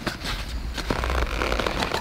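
Paper coffee filter rustling and crinkling as hands open it and fit it into a wire coil dripper, with many small crackles.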